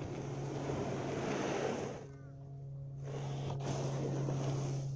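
Wind gusting across the microphone in long swells, dropping away for about a second near the middle, over a steady low hum.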